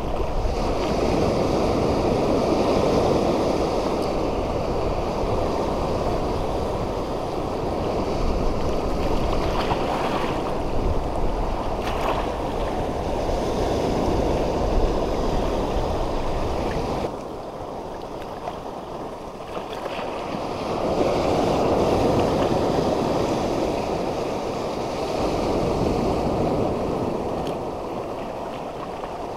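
Sea surf washing over a shallow rock reef: a steady rushing that swells and eases in slow surges, dropping to a lull about two-thirds of the way through before building again.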